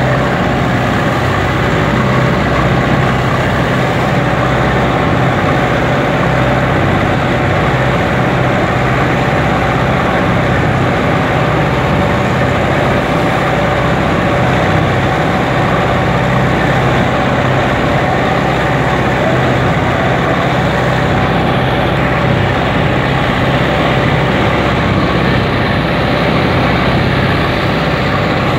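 Fishing boat engines running steadily under way, over the constant rush of water and spray along the hulls.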